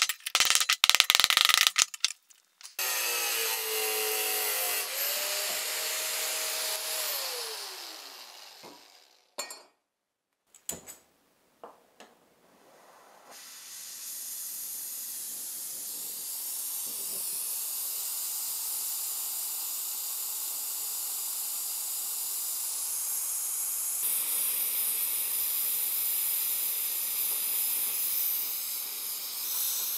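Rapid clicking, then a small power tool running for about five seconds and winding down with falling pitch. After two short clicks, a gas torch starts up and hisses steadily, heating copper parts for brazing.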